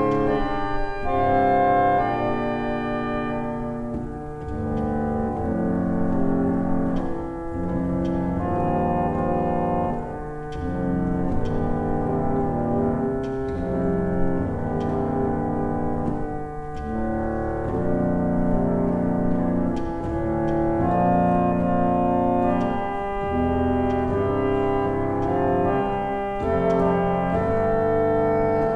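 1871 Estey cottage reed organ, foot-pumped, playing a slow hymn arrangement in sustained chords that change about every second. The volume swells and eases in waves.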